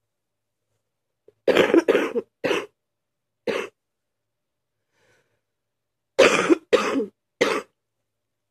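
A sick person coughing in two fits: four coughs starting about a second and a half in, then three more near the end.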